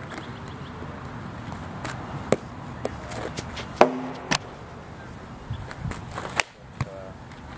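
A softball bat meets a tossed ball a little under four seconds in: a sharp crack with a brief metallic ring, the loudest sound here. Several lighter knocks fall before and after it.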